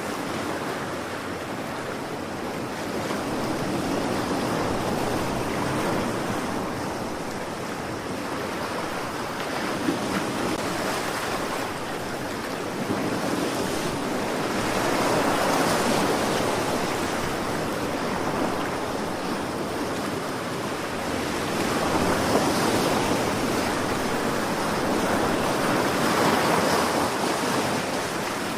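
Sea waves washing on the shore, a steady surf rush that swells and falls back every few seconds, with some wind on the microphone.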